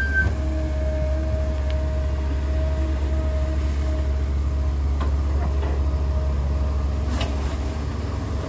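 Caterpillar E120B hydraulic excavator working, its diesel engine a steady low drone under load as the bucket digs into a pile of rock and soil. A steady whine runs over the first few seconds, and a few short knocks come near the end as the load swings over the dump truck.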